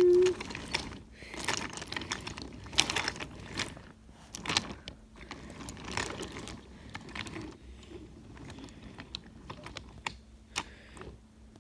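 Toy train running on its track: irregular light clicks and clatter of wheels and plastic pieces over a faint steady motor hum.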